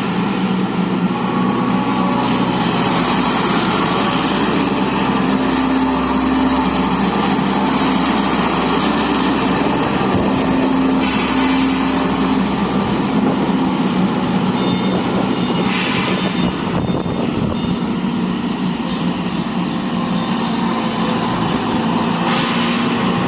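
A skid steer loader's engine running steadily, its engine note shifting a little at times.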